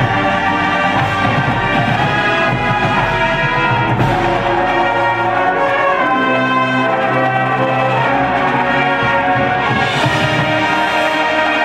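Marching band playing a field show: the brass section sounds full sustained chords over front-ensemble mallet percussion and drums, at a steady loud level, the harmony shifting to lower held notes about halfway through.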